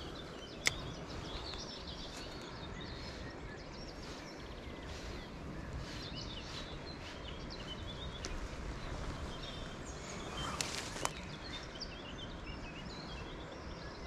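Outdoor riverside ambience: a steady background rush with small birds chirping now and then. A single sharp click comes about a second in, and a softer one near the end.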